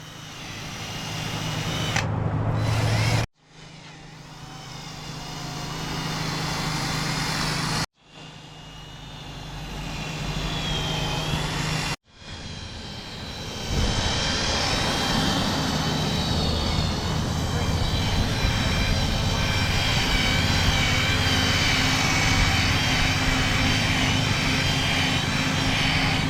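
A motor running steadily with a low hum, heard in four short clips cut together, each cut breaking the sound off abruptly.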